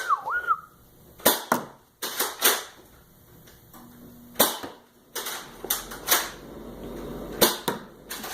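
Nerf dart blaster being primed and fired repeatedly, about a dozen sharp plastic pops and clacks at irregular intervals, along with darts striking targets.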